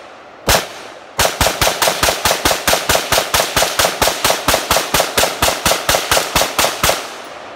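Smith & Wesson M&P Sport 2 AR-15 semi-automatic rifle, in 5.56 mm, firing: one shot, then a fast unbroken string of about thirty shots at about five a second, each with a short echo, stopping shortly before the end.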